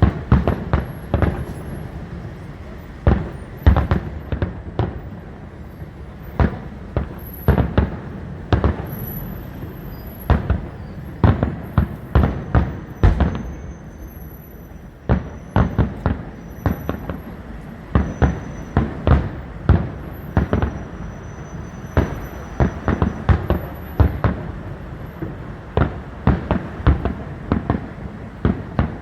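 Fireworks display: a dense, irregular series of booming bursts, several a second at times, each with a short echo.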